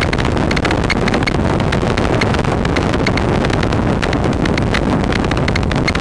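Wind rushing over the microphone of a camera on a moving motorcycle, with the motorcycle's engine running underneath and a rapid, uneven clicking through it.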